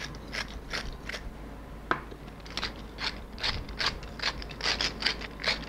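Hand-twisted wooden seasoning mill grinding, a run of short rasping grinds about two or three a second, with one sharp click about two seconds in.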